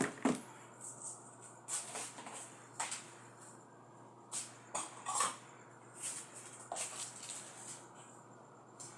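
Scattered light knocks and clicks of kitchen things being handled, about a dozen at uneven intervals, over a steady low hum.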